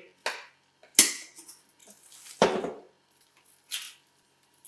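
Hard plastic reverse osmosis filter housings and cartridges being handled and set down: a few separate clunks and clicks, the sharpest about a second in and a fuller, hollow knock about two and a half seconds in.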